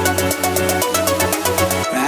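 Electronic dance music with a steady beat, bass and synth melody.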